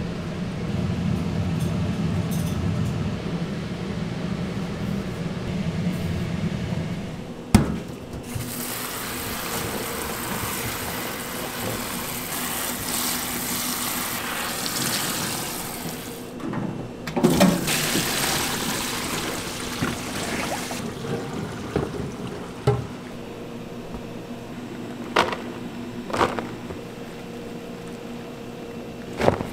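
Tap water spraying steadily into a plastic tub of shishito peppers in a stainless steel sink as gloved hands rub them clean, with a brief break in the flow. Before it, gloved hands work chicken in a tub of flour, a low rumbling rustle; after the water stops, the wet peppers are shifted about in a metal colander with a few light knocks.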